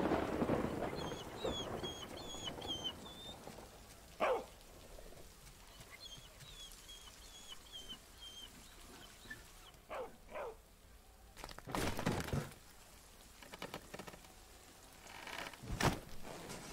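Animated film soundtrack with no dialogue: a few short falling animal cries like whimpers, faint high chirping, and two heavy thuds near the end.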